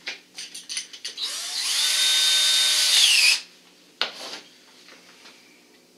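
Cordless drill runs for about two seconds. Its whine spins up, holds steady, then drops in pitch as it stops. A few handling clicks come before it and a single knock comes after.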